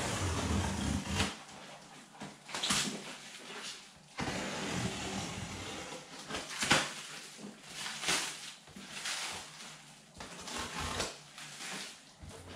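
Black plastic wrapping and packing tape being torn and pulled off a large parcel: crinkling and ripping in repeated bursts.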